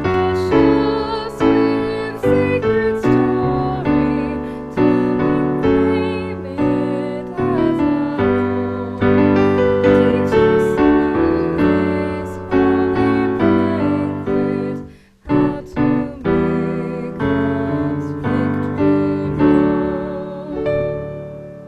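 Piano music, a slow piece of struck notes and chords that each ring and fade, with a brief gap about fifteen seconds in.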